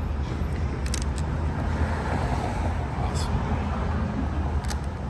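Steady low rumble of road traffic, with a few light clicks of plastic LEGO pieces being handled and pressed together.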